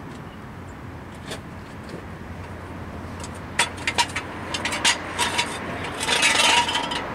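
Metal jacking gear being worked under a car: a few sharp metallic clicks, then a short scraping rasp near the end as the jack and jack stand are repositioned, over a steady low background hum.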